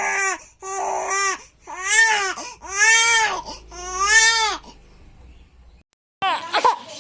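A baby crying in a run of wails, each about a second long and rising then falling in pitch, with a short pause before it cries again near the end.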